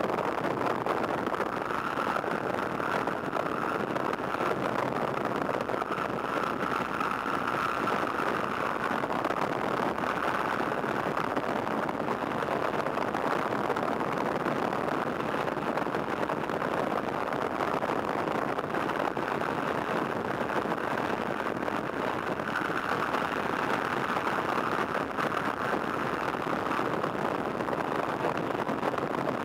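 de Havilland Tiger Moth's Gipsy Major four-cylinder inverted engine running steadily in flight, mixed with the rush of the slipstream through the open cockpit. A higher rushing tone swells twice, in the first few seconds and again after about twenty seconds.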